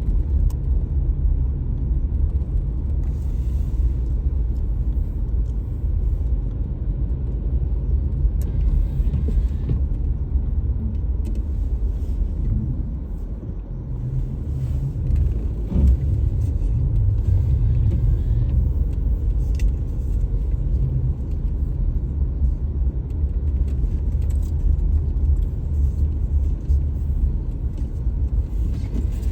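Steady low rumble of a car driving on snowy roads, with brief hissing swells now and then.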